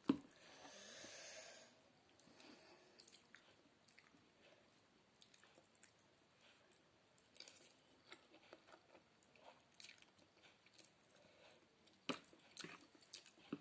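Faint chewing and mouth noises of a person eating noodle soup made with spaghetti noodles, with scattered small clicks. There is a sharp click at the start and another about twelve seconds in.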